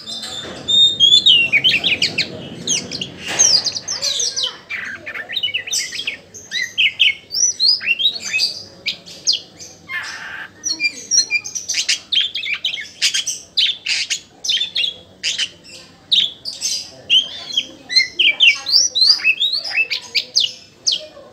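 Oriental magpie-robin (kacer) singing hard and without pause: a rapid, varied run of short whistled notes, quick sweeping notes and harsher chatter. A low rough noise lies under the first few seconds.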